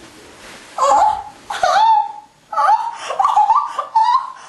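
A person laughing in several high-pitched bursts, starting about a second in.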